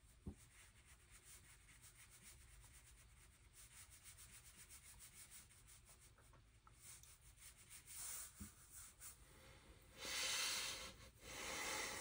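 Faint swishes of a wet watercolour brush stroked across paper, with a small click just after the start and two louder strokes near the end.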